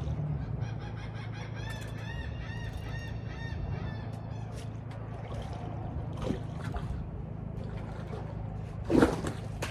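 Spinning reel's drag whining in quick pulses, about four a second, as a hooked tarpon pulls line off it. A loud sharp thump or splash comes near the end.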